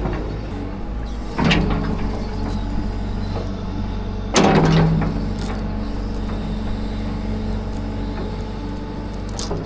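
Tracked excavator's diesel engine running steadily as the machine works, with two louder, harsher surges about one and a half and four and a half seconds in.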